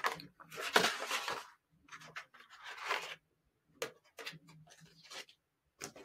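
Paper pages of a picture book being opened and turned by hand: two rustling swishes, about a second in and again about three seconds in, with light taps and rubs of handling in between.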